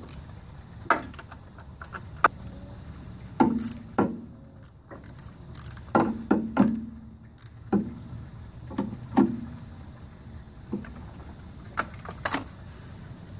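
Hand tools clicking and knocking at irregular intervals while the VTEC solenoid's 10 mm bolts are tightened, a dozen or so sharp clicks, some with a brief ring, over a steady low hum.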